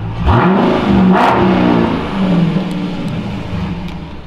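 Dodge Challenger Scat Pack Widebody's 6.4-litre HEMI V8, with its mid-muffler and resonator deleted, revved hard from idle: the revs jump up about a third of a second in, hold for a couple of seconds, then fall back to idle. Heard from inside the car's cabin.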